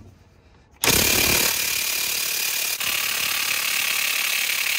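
DeWalt XR cordless impact wrench, on a long extension, hammering steadily on a front shock-absorber bolt. It starts about a second in and keeps going without breaking the over-tightened bolt loose.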